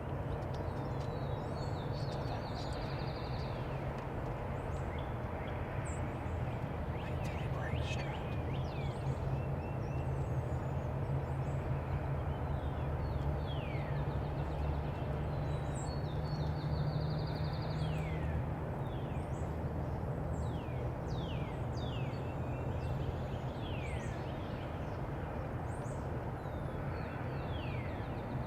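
Wild birds calling: many short, falling chirps and a couple of brief high trills, over a steady low rumble.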